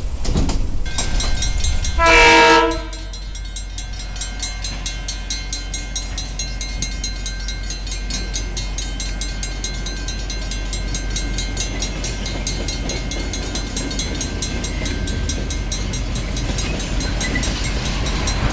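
Horn of a KiwiRail DC-class diesel-electric locomotive, one short blast about two seconds in. After it, the locomotive and its container wagons pass a level crossing with a steady rumble while the crossing bells ring.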